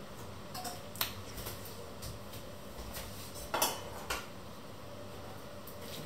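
A few sharp clinks and knocks of kitchen utensils and dishes being handled on a counter. There is one about a second in, a short cluster, the loudest, at about three and a half seconds, and another just after four seconds, with lighter ticks between.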